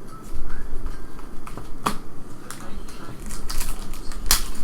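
Trading card packs and cards being handled: crinkling wrappers with sharp snaps and clicks, the loudest about four seconds in.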